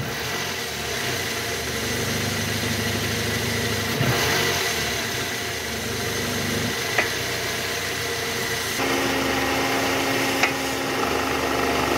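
Toyota Harrier's 2AZ-FE 2.4-litre four-cylinder engine running in reverse gear with the AC on, freshly fitted with a new balancer shaft, without the rough 'krek' noise it had before. About nine seconds in, the sound changes abruptly to a steadier hum, from the same engine before the repair, when its balancer shaft was worn loose.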